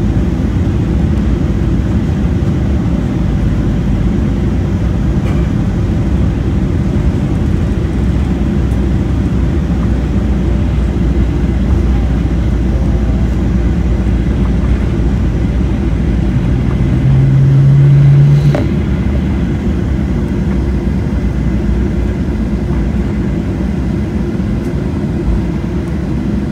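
Steady low rumble of an airliner cabin as the plane rolls along the runway on its wheels. About sixteen seconds in, a louder low hum rises for about two seconds and stops with a click.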